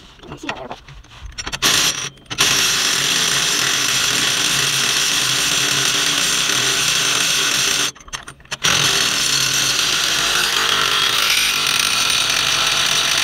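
Ryobi cordless power tool with a socket adapter running nuts down onto bolts, in two long runs of several seconds with a short pause between, after a few brief triggers: the nuts being tightened.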